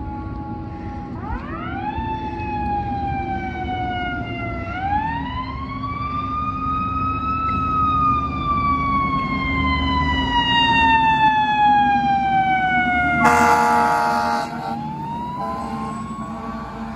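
Fire truck siren winding up sharply and falling slowly, twice, as the truck approaches. About 13 seconds in a loud horn blast sounds for just over a second, and then the siren winds up again.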